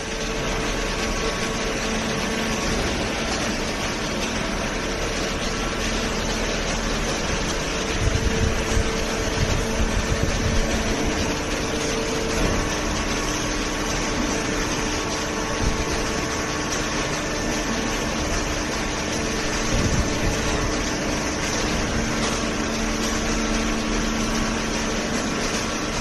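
Horizontal cardboard baler line with its feed conveyor running: a steady mechanical hum carrying a few faint held tones, with low thumps about eight to eleven seconds in and again near twenty seconds.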